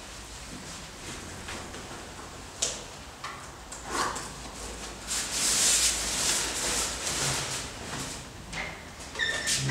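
Handling noises of shoes and clothing being put on: scattered knocks and clicks, then a longer stretch of fabric rustling as a coat is swung on, and a brief squeak near the end.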